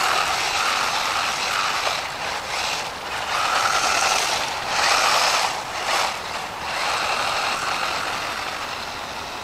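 DEERC 300e 1/18-scale brushless 4x4 RC monster truck driven at its full-speed setting: a high brushless-motor whine with tyre noise, in several surges of throttle, fading near the end.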